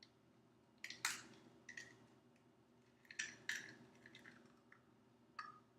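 Faint, scattered sharp taps and cracks of an egg being cracked against a bowl and its shell pulled open.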